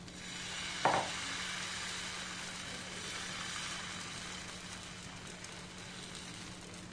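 Liquid wheat-flour paratha batter sizzling on a hot nonstick frying pan as it is poured in and spread with a steel ladle. The hiss swells as the batter goes in and slowly dies down, with one sharp knock of the ladle on the pan about a second in.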